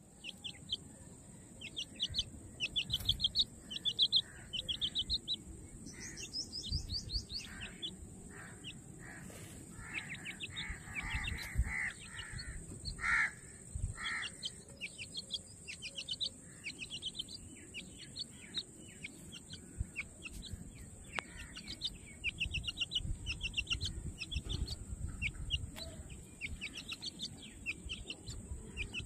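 Young teetar (francolins) calling with many short, high chirps, often in quick trilling series, with a few lower calls about ten to fourteen seconds in. A steady high-pitched whine runs behind them, with occasional low bumps.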